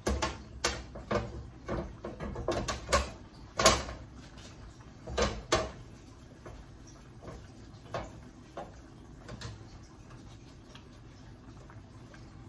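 Kitchen clatter of utensils and containers: a quick run of knocks and clinks over the first six seconds, the loudest a little under four seconds in, then a few faint taps.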